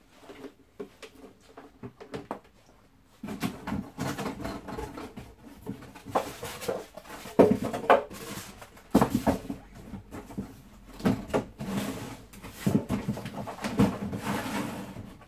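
Rustling of packaging with irregular clicks and knocks of hard plastic parts being handled. Two sharper knocks come about seven and a half and nine seconds in.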